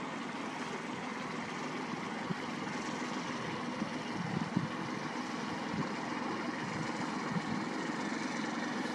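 Engine of a small open motorboat running steadily as it passes along the river, a continuous drone.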